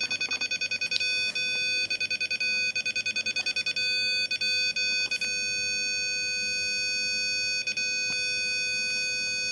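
AXIS Q1615-LE Mk III network camera's leveling-assistant buzzer beeping rapidly, several beeps a second, then after a few breaks holding one continuous tone from about five seconds in: the continuous tone signals that the camera is level.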